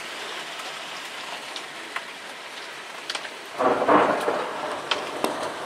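Hail and rain falling in a steady hiss, with scattered sharp ticks of hailstones striking, and a short burst of thunder a little over three and a half seconds in.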